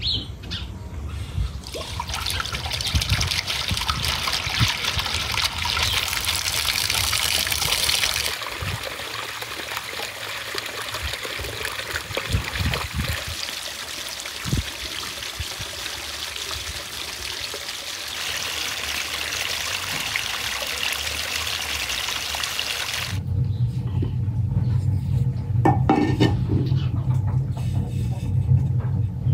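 Water pouring and splashing in a steady rush, its sound changing about eight seconds in. After a cut near the end, a steady low hum takes over.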